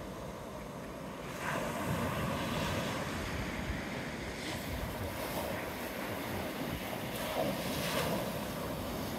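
Small surf waves breaking and washing up the sand, swelling about every three seconds, with wind buffeting the microphone.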